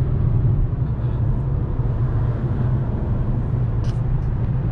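Steady low drone of a car driving: road and engine noise.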